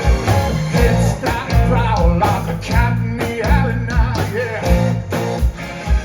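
Rock band playing live: drum kit keeping a steady beat of about two kicks a second under bass and electric guitars, with a bending lead line.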